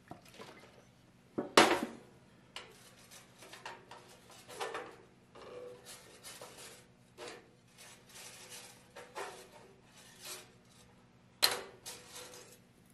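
A rag wet with acetone wiping down stainless steel coupons and filler rods on a steel welding table, heard as a run of short rubbing and scraping strokes with light metal clinks. There is a sharp metal knock about one and a half seconds in and another near the end.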